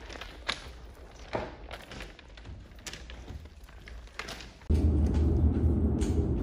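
Footsteps of people walking along the railway tracks in a tunnel, a few scattered knocks and scuffs. About four and a half seconds in, a loud steady low rumble cuts in abruptly and carries on.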